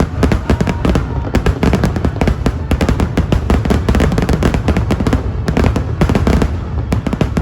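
Fireworks display: shells bursting in rapid, continuous succession, a dense run of sharp bangs and crackles over deep booms.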